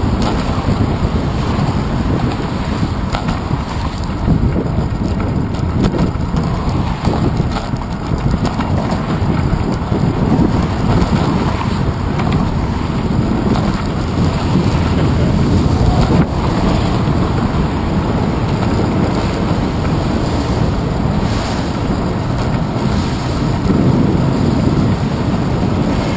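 Steady wind rumble on a handlebar-mounted GoPro camera's microphone while riding a bicycle, mixed with the noise of car traffic passing on the roadway alongside.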